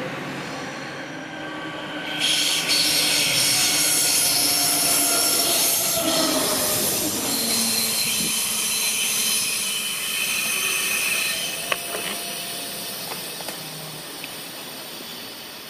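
Bombardier Talent diesel multiple unit passing close by. Its engine drone drops in pitch as it goes past, and a high-pitched wheel squeal cuts in suddenly about two seconds in. Everything fades as the train draws away.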